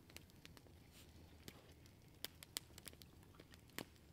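Near silence broken by a small wood campfire crackling: a handful of sharp, scattered pops, the loudest about two and a half seconds in, with another near the end.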